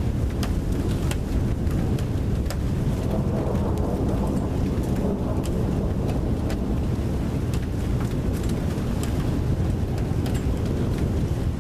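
Storm wind buffeting the microphone as a steady low rumble, with scattered sharp ticks of raindrops striking.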